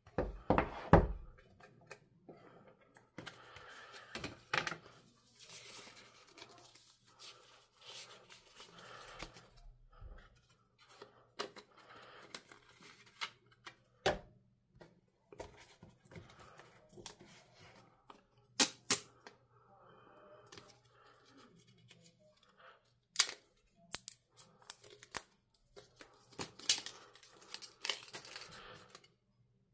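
Unboxing of an AirPods Pro 2 box: paper pull-tab seal strips tearing and paper-and-cardboard packaging being handled and slid apart, with scattered sharp clicks and taps, a few of them loud.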